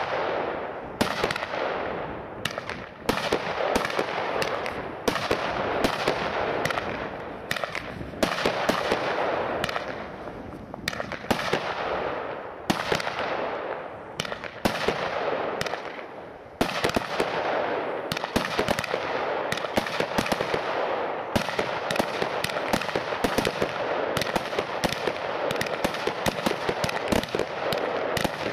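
WECO Power Tec PRO 180.1 fireworks cake firing: a rapid, nearly unbroken run of shots, several a second, over a continuous hiss from the burning effects.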